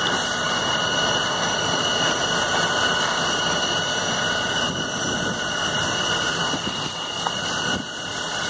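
Steady roar of a fire engine's engine and pump running at pressure, with a fixed high whine on top.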